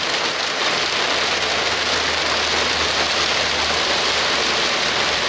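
Steady rain falling outdoors, an even hiss with no breaks.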